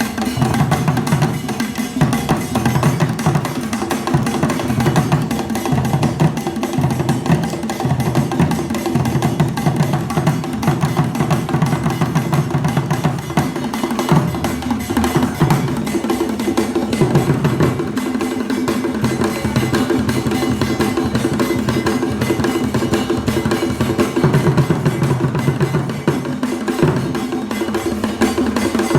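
Kete drum ensemble, the Akan court drumming, playing a dense interlocking rhythm: deep drum tones pulse under a steady stream of sharp, quick strokes.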